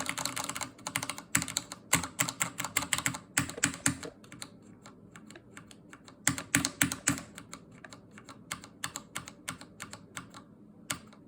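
Typing on a Corsair K68 mechanical keyboard with Cherry MX Red linear switches: fast runs of keystrokes in bursts with short pauses, thinning to lighter scattered keystrokes in the second half, with one last keystroke near the end.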